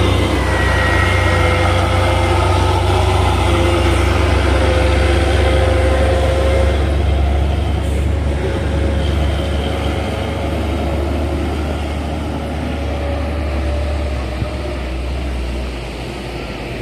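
Heavy diesel trucks labouring past at close range: a loud, deep engine drone with a steady whine over it, easing off gradually toward the end.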